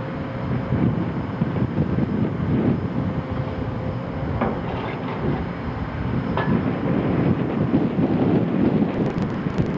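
Wind buffeting the microphone over a low, uneven rumble, with two short knocks, one about four and a half seconds in and one about six and a half seconds in.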